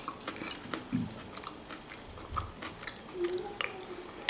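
Close-miked chewing of a mouthful of crab stick salad: a string of small wet clicks and smacks from the mouth, with a brief low hum about three seconds in.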